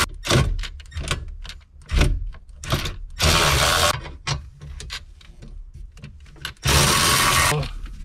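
Milwaukee cordless ratchet with a 10 mm socket on an extension, spinning in two short bursts of under a second each, about three seconds apart, as it backs out dash bolts. Small clicks and knocks of the socket and tool come between the bursts.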